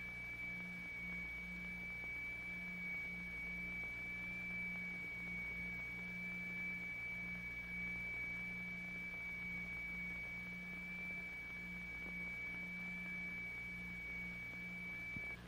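Electronic test tones beating: a steady high pure tone over a lower hum that throbs on and off, two notes tuned close enough to interfere. The high tone cuts off near the end.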